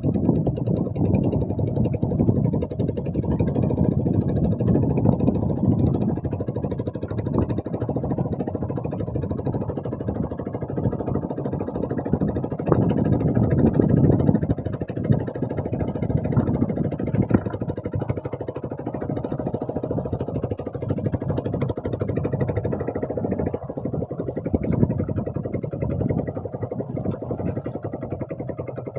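A small boat's engine running steadily, with a low, rumbling drone.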